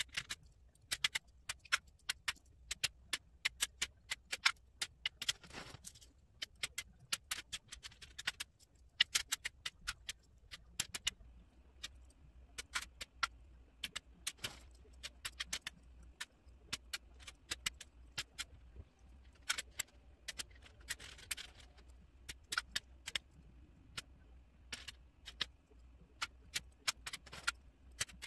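Small plastic Ravensburger 3D puzzle-ball pieces dropped by hand into plastic sorter trays: quick, irregular clicks and light clatter in runs of several at a time, with short pauses between handfuls.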